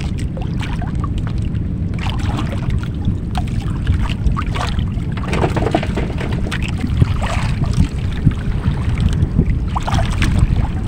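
Wind buffeting the microphone over water lapping against a small outrigger boat's hull: a steady low rumble, with scattered light knocks and splashes.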